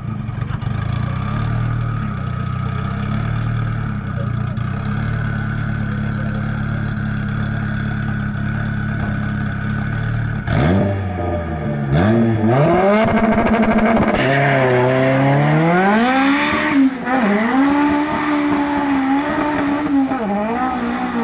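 Turbocharged Honda VTEC drag car's engine held at steady revs on the start line. About ten seconds in it launches and accelerates hard down the strip, the pitch climbing and falling back with each upshift.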